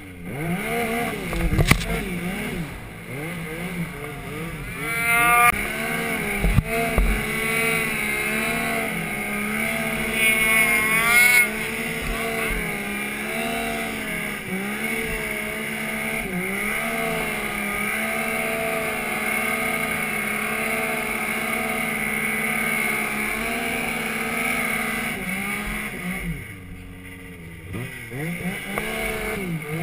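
Stock Yamaha Nytro snowmobile's four-stroke three-cylinder engine working hard in deep powder, its revs rising and falling with the throttle. It sweeps up sharply about five seconds in and again about eleven seconds in, then drops off briefly near the end before picking up again.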